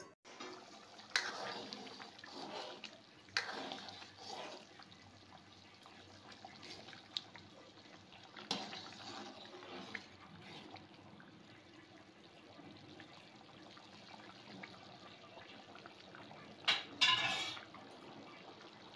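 Thin chicken curry gravy simmering and bubbling in a pan, with a ladle stirring through it and a few soft clinks against the pan. A brief louder clatter comes near the end.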